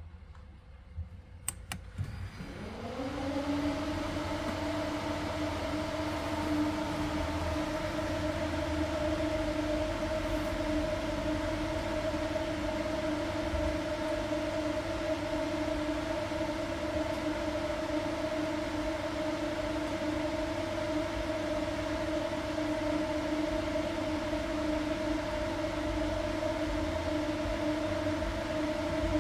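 An electric fan motor switches on with a click about a second and a half in, spins up rising in pitch, then runs with a steady hum over a low rumble.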